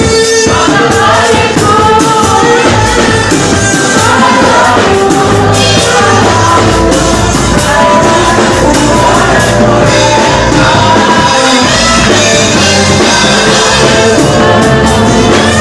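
Live praise and worship music: singing over a band, with drums and a steady bass underneath.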